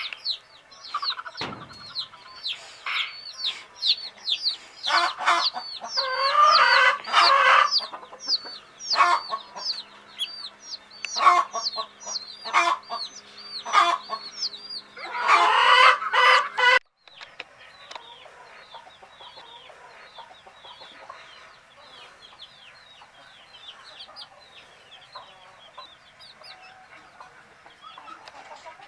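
Domestic baby chicks peeping continuously in quick, short, falling chirps, with loud stretches of a hen clucking among them about a third of the way in and again past the middle. The sound drops suddenly about 17 seconds in, and quieter peeping goes on.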